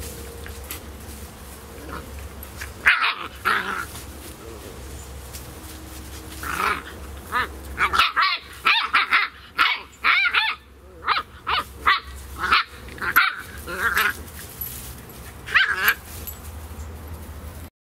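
Beagle puppies play-fighting, giving short high-pitched yips, barks and growls in scattered bursts, with a quick run of yips in the middle. The sound cuts off suddenly near the end.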